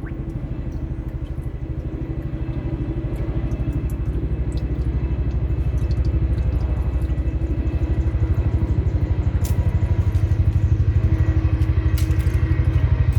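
A motor or engine running steadily with a low, rapid, even pulse, growing gradually louder, with a few light clicks on top.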